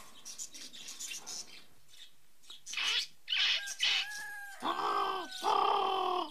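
Farmyard chickens squawking, then a rooster crowing in two long, drawn-out notes near the end.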